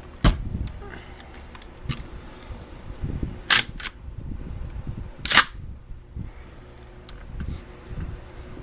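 A few sharp mechanical clicks: one just after the start, a quick pair about three and a half seconds in, and the loudest a little past five seconds.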